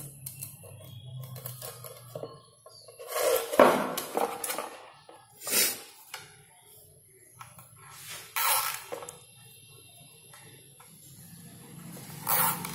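Handling noise: several short rustling and scraping bursts as plastic cable ties and their bag are handled and the ties are threaded around a small water pump.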